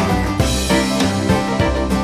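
Upbeat background music with plucked strings over a steady drum beat, in a country or bluegrass style.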